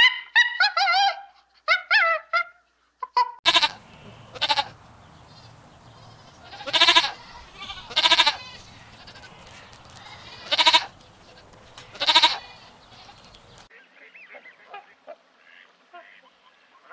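Farm animals calling. A quick run of short chattering calls comes first. After a change of scene, six loud calls come a second or two apart over a low steady hum, and fainter scattered calls follow near the end.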